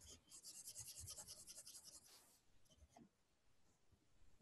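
Faint scratching of a stylus on a graphics tablet: rapid back-and-forth hatching strokes, about a dozen a second, for roughly two seconds, then a few soft ticks.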